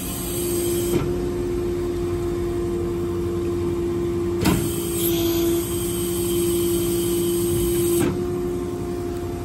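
Truck-mounted IMT service crane's hydraulics running with a steady whine, broken by three sharp clicks about three and a half seconds apart as crane functions switch on and off.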